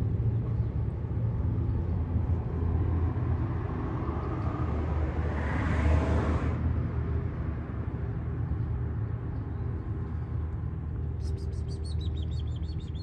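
Steady low rumble of road traffic, with one vehicle passing by about halfway through, swelling and fading over a couple of seconds. Near the end, a quick run of high chirps starts up.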